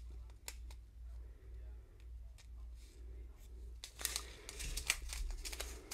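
Small plastic zip-lock bag of diamond painting drills handled and turned in the hands, crinkling with faint crisp clicks that get busier and louder about four seconds in.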